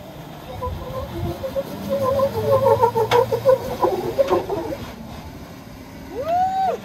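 Jeep Wrangler Rubicon climbing a steep slickrock ledge under load, its engine pulling with a low steady hum, and a run of short squeaks in the middle as it strains up the rock. A short tone that rises then falls sounds near the end.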